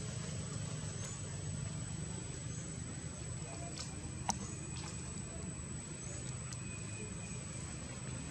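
Steady low outdoor background rumble with a few faint short high chirps and one sharp click about four seconds in.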